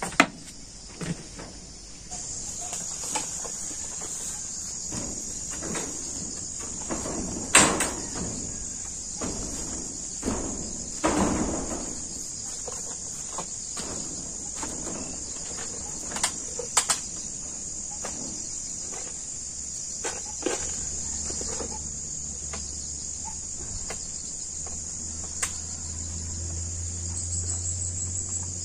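Steady high-pitched insect chorus, crickets or cicadas, with scattered knocks and creaks from a man climbing a bamboo ladder.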